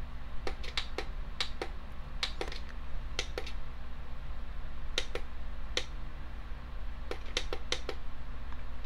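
Setting buttons on a Peakeep battery digital alarm clock being pressed over and over to step the alarm time, a string of a dozen or more sharp plastic clicks at uneven spacing.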